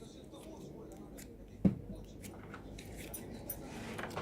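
Slime being squeezed and stretched by hand, with small sticky clicks and pops and one louder knock about one and a half seconds in.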